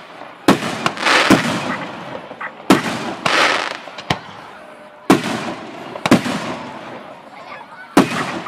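Professional aerial firework shells, 2.5 to 5 inch, launching and bursting overhead from close range. About nine sharp bangs come at irregular intervals, several trailed by a crackling hiss.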